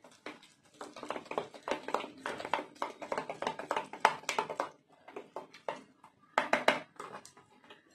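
Spoon beating a thick flour-and-water pakora batter in a plastic tub, with rapid wet slaps and clicks against the tub. The stirring runs for about four seconds, pauses, then comes back in a short quick flurry near the end.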